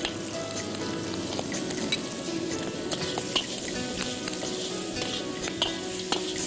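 Diced filling sizzling in a hot wok as it is stir-fried, a metal ladle stirring and scraping it, with several sharp clicks of metal against the wok.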